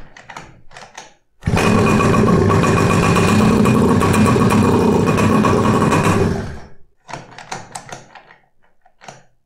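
Pocket bike's small two-stroke engine being pull-started: a few clicks of the recoil starter, then the engine catches about a second and a half in, runs steadily for about five seconds and dies. More recoil-starter clicks follow as it is pulled again.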